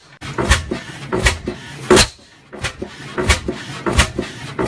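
A 50 hp Superior single-cylinder horizontal gas engine running slowly, a few sharp clacks and knocks a second from its running gear and firing, with a brief lull about two seconds in.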